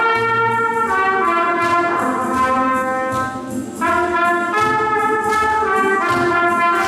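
Trumpet playing a slow melody of held notes, with a brief breath pause about three seconds in.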